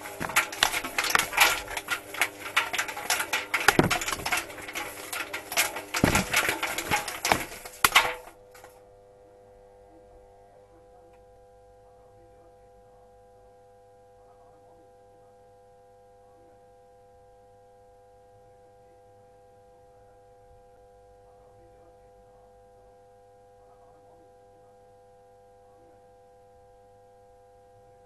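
Clothes dryer drum tumbling with a camera inside, a dense run of rattling and knocking against the perforated steel drum that cuts off about eight seconds in. After that, only a faint steady hum of several held tones is left.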